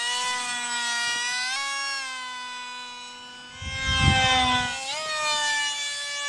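Electric motor and pusher propeller of a small foam RC plane whining in flight, the pitch sagging slowly and then stepping up twice with throttle, about a second and a half in and again about five seconds in. Between these a louder rush with a falling pitch as the plane passes close by.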